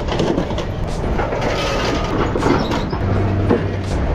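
Liebherr scrap material handler unloading scrap metal with its hydraulic grapple: the engine and hydraulics run under repeated metal clanks as the grapple bites into the pile.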